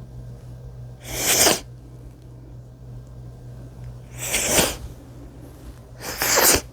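Three wet human sneezes, each a short, loud burst of noise. They come about a second, four seconds and six seconds in, the last two closer together.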